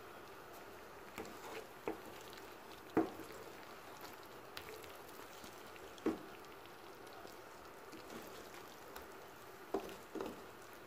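A wooden spatula stirring a thick chilli sauce with chicken wings and potato cubes in a frying pan. It gives several short knocks and scrapes against the pan, the loudest about three and six seconds in, over a faint steady hiss.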